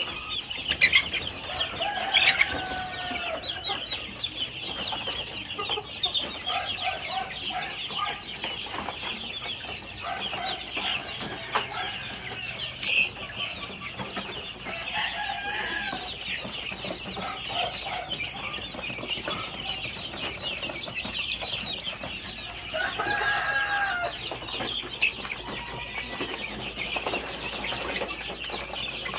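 A flock of chickens calling: constant high-pitched peeping and chirping, with a few louder, lower clucks and squawks scattered through. A couple of sharp knocks sound in the first few seconds.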